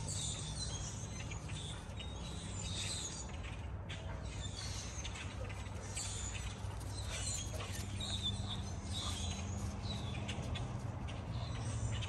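Birds chirping in short, scattered calls over a steady low machine hum.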